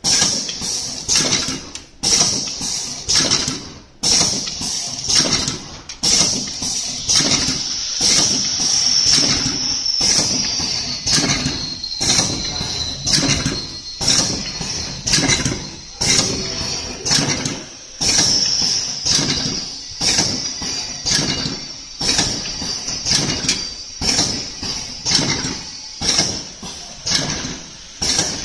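Automatic honey stick bag packaging machine running: its pneumatic sealing and cutting jaws clack rapidly and repeatedly in a steady rhythm, with a louder beat about every two seconds, over a steady high whine.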